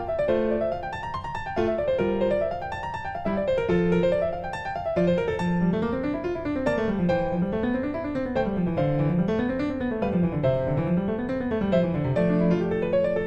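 Background piano music: quick rising and falling arpeggio runs over sustained low notes.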